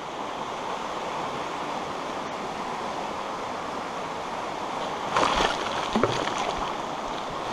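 Steady rush of a small river flowing over shallow riffles, with brief louder noises about five and six seconds in.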